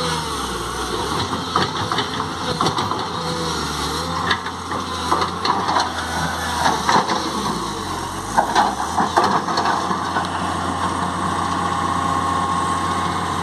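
L&T Komatsu PC200 hydraulic excavator's diesel engine running steadily, with repeated metallic clanks and rattles from the machine as it works. A steady higher whine joins near the end.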